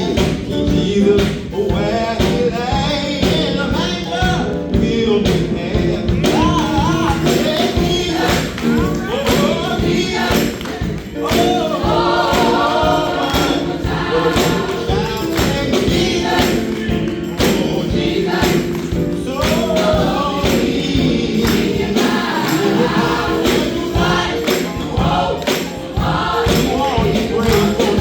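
A high school choir singing a song, with percussion keeping a steady beat.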